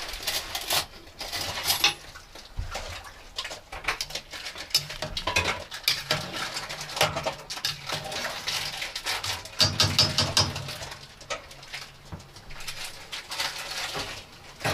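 Kitchen handling noises: an irregular run of light clicks and knocks of dishes and utensils, with one louder knock about two seconds in.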